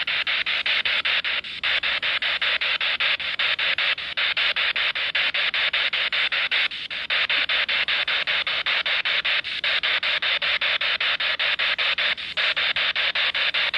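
Steady hiss of static, chopped by rapid, even gaps, with a longer break about every three seconds.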